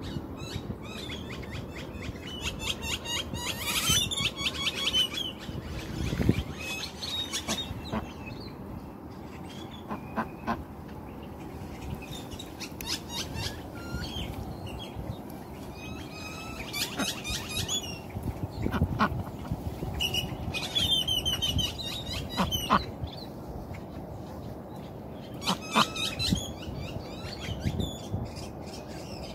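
A white Pekin duck quacking on and off, with high bird chirps in between.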